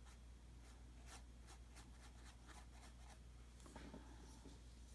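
Faint scratchy strokes of a paintbrush scrubbing art crayon into textured canvas, a quick series of short strokes, over a low steady hum.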